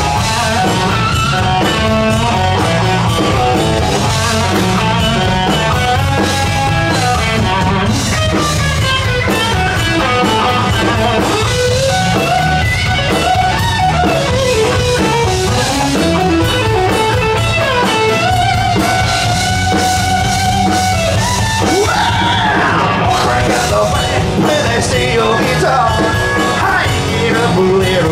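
Live country-rock band playing an instrumental stretch: an electric guitar carries a bending lead line over a steady drum kit.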